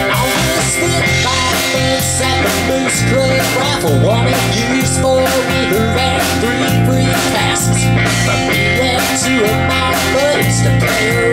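Live band playing a country-rock song: an instrumental stretch with an electric guitar lead bending notes over drums and a steady low beat.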